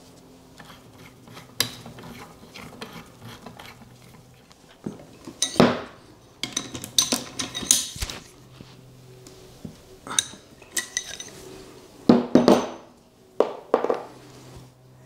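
Metal-on-metal clinks and clatters of a socket and bar on the cast-iron base of a milling vise as its screws are worked, in scattered bursts that are busiest in the middle and near the end.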